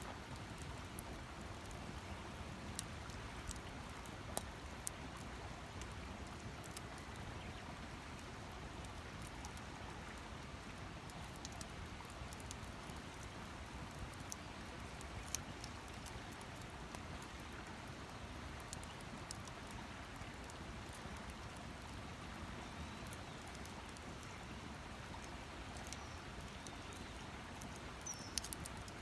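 Campfire crackling with a steady hiss and scattered sharp pops. Near the end, a few short high chirps.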